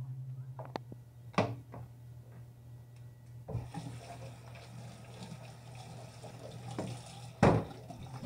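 A kitchen tap is turned on about three and a half seconds in, and water runs into a sink, over a steady low hum. Sharp knocks come shortly after the start and near the end.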